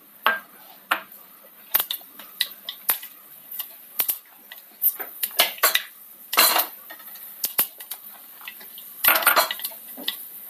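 Mustard and fenugreek seeds spluttering in hot coconut oil in a pan: irregular sharp pops and crackles, with a couple of short denser bursts, over a faint sizzle of the oil.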